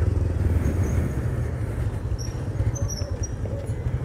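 Bajaj Pulsar 220's single-cylinder engine running steadily at low speed as the bike rolls over a paving-stone street.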